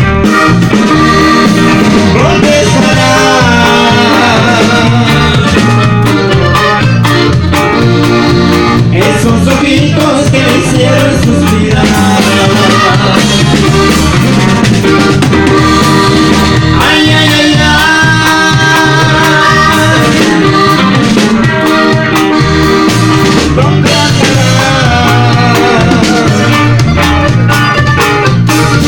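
Live norteño music: a button accordion plays the melody over strummed string accompaniment and a steady bass line.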